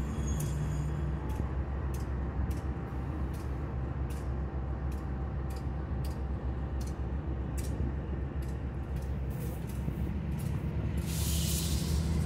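Diesel freight locomotives idling with a low, steady rumble and faint clicks about once or twice a second. Near the end a loud burst of air hiss breaks in, typical of a locomotive's air brakes venting.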